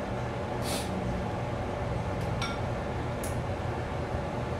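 Food being laid by hand into a ceramic casserole dish over a steady low hum, with a few soft brushing sounds and one light clink of dishware about two and a half seconds in.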